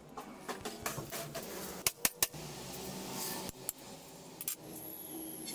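Metal clinking and knocking as the housing of an inline diesel injection pump and the tools around it are handled on the bench, with a quick run of three sharp clicks about two seconds in.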